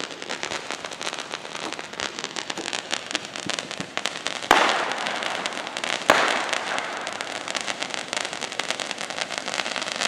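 Fireworks going off: a dense run of small cracks and crackling, with two louder bangs about four and a half and six seconds in, each followed by a burst of crackle.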